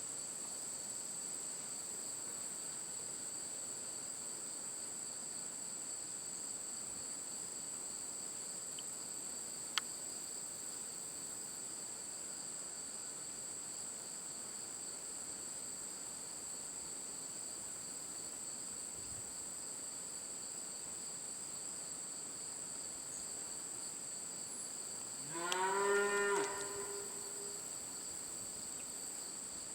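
A cow moos once, near the end: a single call of about two seconds that rises in pitch and then holds. A steady high-pitched insect drone runs underneath, and there is one sharp click about ten seconds in.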